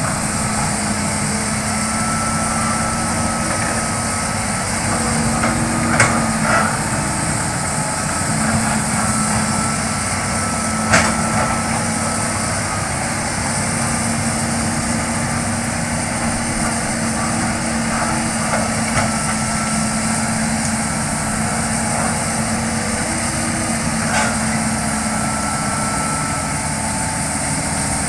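Hitachi crawler excavator's diesel engine running steadily under work, with a high hydraulic whine that comes and goes. A few sharp knocks stand out, the loudest about a third of the way in.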